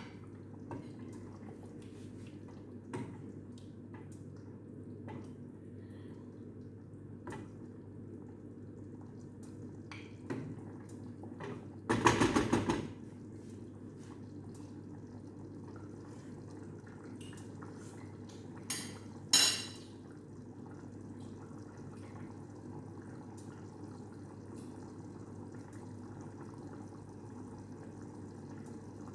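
Cookware being handled: occasional light knocks over a steady low background, a brief rattling clatter about twelve seconds in, and two sharp clinks a little later.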